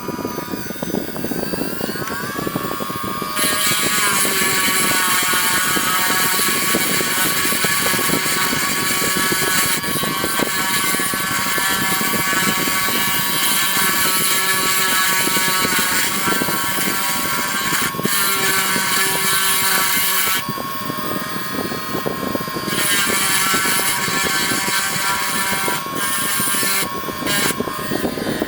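Small high-speed rotary drill whining as it drills out the backlight coil on an iPhone 6 logic board. It spins up with a rising whine a few seconds in, runs steadily, stops about twenty seconds in and starts again a couple of seconds later, breaking off briefly near the end, over a steady low hiss.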